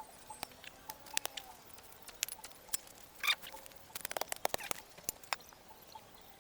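Irregular sharp clicks and clinks of hard objects knocking together, coming in a dense cluster about two-thirds of the way through.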